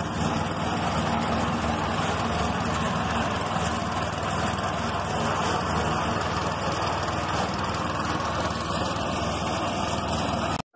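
Small petrol engine of a portable concrete mixer running steadily, then cutting off abruptly near the end.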